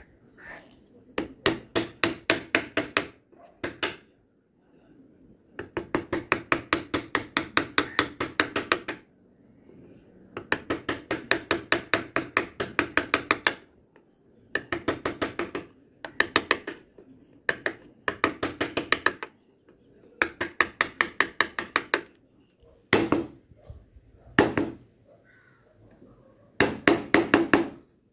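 Wood-carving gouge driven into the wood by rapid light taps, about six a second, in bursts of one to three seconds with short pauses between.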